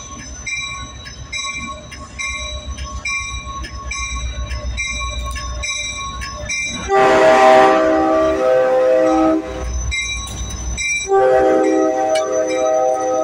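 Amtrak F40PHR diesel locomotive passing close by: a bell rings steadily about twice a second over the low engine rumble, then the multi-chime air horn sounds a long blast about seven seconds in and a second blast about eleven seconds in, the loudest sound.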